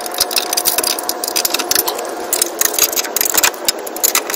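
Socket ratchet or click-type torque wrench clicking in quick, irregular runs as bolts on the steel bumper's winch plate are turned.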